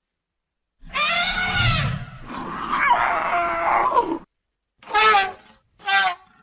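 Elephant calls used as creature sound effects: a long pitched call about a second in, a second wavering call straight after it, then two short calls about a second apart near the end.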